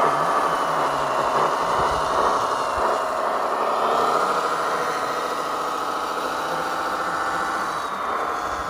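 Scale RC truck's sound module playing a diesel engine idling steadily through a small speaker.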